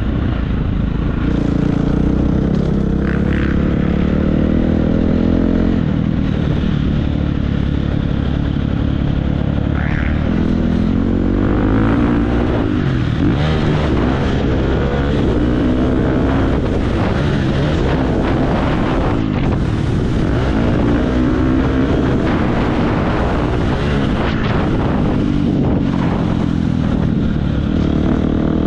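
2017 Husqvarna FC350's four-stroke single-cylinder motocross engine under way, its pitch rising and falling again and again as the throttle is opened and closed.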